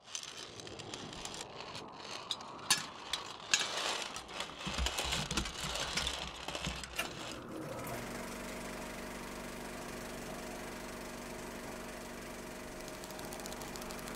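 Film projector mechanism: irregular clicking and clattering for about the first eight seconds, then it settles into a steady running hum with a faint, fast ticking.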